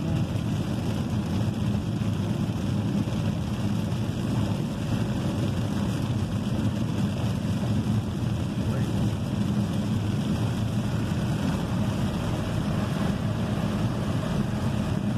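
Steady cabin noise of a Chevrolet car driving at highway speed in heavy rain: tyres running on the wet road and a low engine drone.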